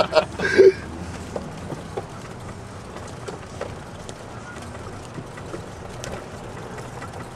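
A vehicle running steadily while riding along, a low hum with faint rattles and clicks, after a short vocal sound in the first second.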